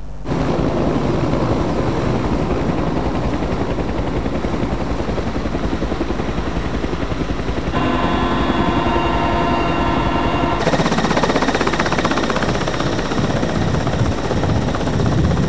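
Helicopter running steadily, its rotor and engine noise pulsing fast. From about eight seconds in, for a few seconds, a whine of several steady tones rides on top, as heard inside the cabin.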